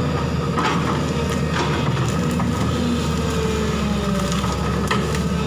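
JCB crawler excavator's diesel engine and hydraulics running steadily under load, with several sharp cracks of branches and brush snapping as the bucket tears into the vegetation.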